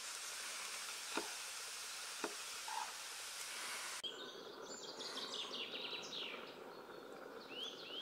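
Vegetables sizzling in a pan, with two sharp strikes of a Böker Plus Sanyougo kitchen knife chopping garlic on a plastic board. About halfway through, the sizzle cuts off suddenly and gives way to birds chirping in short repeated calls.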